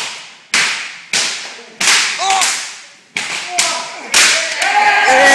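Jiu-jitsu belts lashing a man's bare back in quick succession: a run of sharp cracks, about one every half second. Loud shouts and yells come between the strokes, building near the end.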